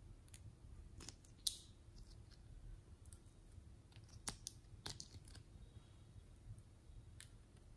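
Pink slime being scooped out of a small plastic pot with a plastic spatula and dropped onto slime: faint, scattered sticky clicks, with a sharper one about a second and a half in and a cluster around four to five seconds in.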